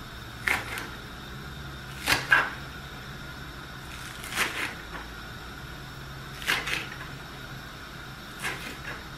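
Kitchen knife cutting green onions on a wooden chopping board: five slow cuts about two seconds apart, each a quick double crunch and tap of the blade against the board.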